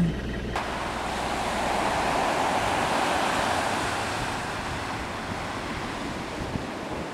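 Ocean surf washing onto a beach. It starts abruptly about half a second in, swells louder as a wave breaks a couple of seconds in, then settles to a steady wash.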